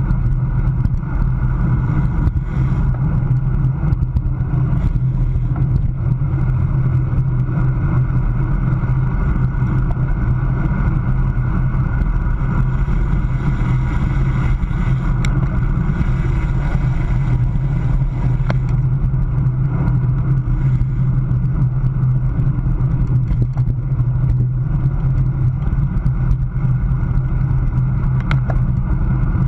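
Steady wind rush over the microphone of a camera mounted on a road bike moving at about 25 mph, heard as a constant low rumble.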